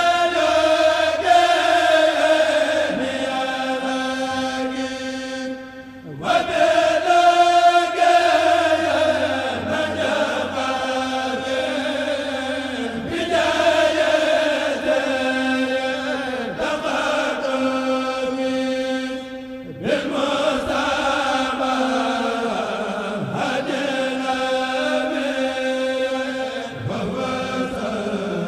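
A kourel of Mouride men chanting a Sufi qasida a cappella in unison, in long held melismatic lines. The chant breaks off briefly between phrases about six seconds in and again about twenty seconds in, then resumes.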